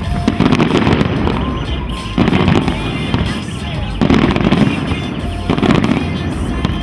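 Aerial fireworks going off in rapid succession: thick crackling and popping with heavier volleys of booms that come in surges about every two seconds.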